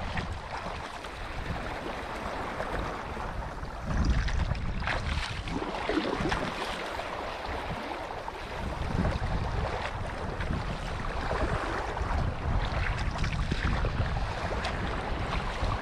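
Wind buffeting the microphone over water splashing and rushing along a kayak hull under sail, louder from about four seconds in.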